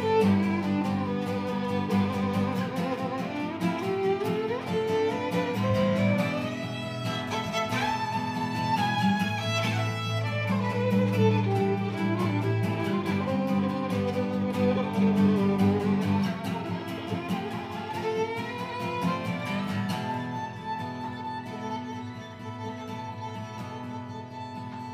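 Violin playing a gliding melody over strummed acoustic guitar in an instrumental passage, growing quieter near the end.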